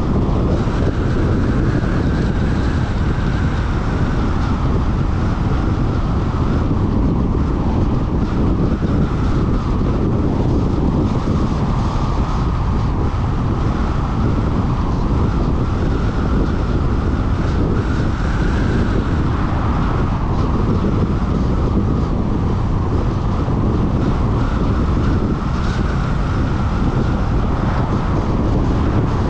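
Steady road noise from a car driving at speed: tyres on asphalt and wind rushing over the GoPro's microphone, with no change in speed.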